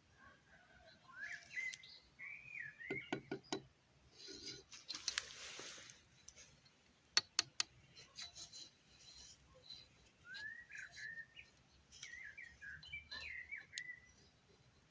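A bird chirping in short twittering phrases, twice: near the start and again in the last few seconds. In between come a few sharp knocks and a short scraping hiss.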